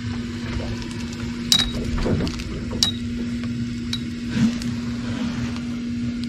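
Electric trolling motor running steadily, a constant even hum as it pushes the small river boat, with a couple of sharp metallic clinks about a second and a half and three seconds in.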